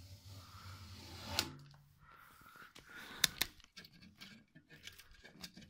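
Faint handling sounds of hands working at the base of a washing machine, peeling seal tape and feeling underneath: light rubbing with a few sharp clicks, one about a second and a half in and two close together around three seconds in.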